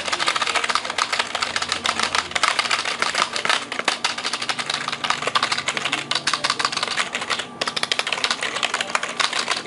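Keys of a Bloody B120 gaming keyboard typed on rapidly, a dense run of clicks with a brief pause about seven and a half seconds in.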